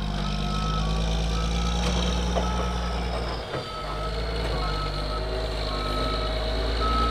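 A heavy rotator tow truck's backup alarm beeps about once a second over the steady running of its diesel engine.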